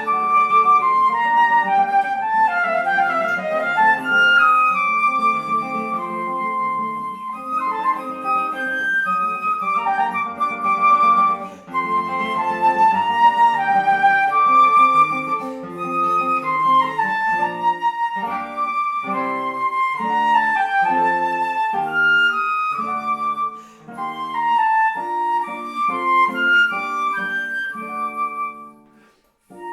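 Flute and classical guitar duo playing: the flute carries a simple melody of held and moving notes over a rhythmic, tango-like plucked guitar accompaniment. The music breaks off briefly near the end.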